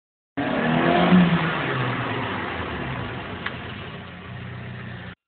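Car engine revving, the pitch falling steadily as the revs drop, then running low and steady near the end. The sound starts and stops abruptly.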